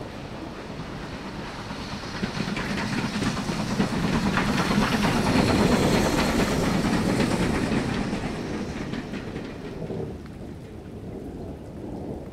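A vehicle passing by: a low rumble with a rapid rattling clatter that swells to its loudest about halfway through, then fades.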